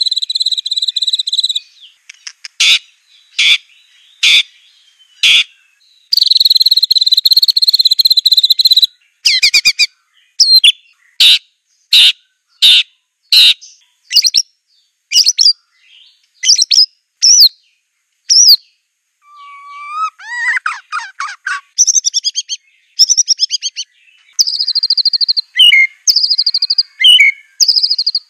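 White-rumped shama (Aceh murai batu) singing a varied song: long high trills, runs of sharp single whistled notes about one a second, a lower fluttering phrase about two-thirds of the way through, and quick repeated phrases near the end.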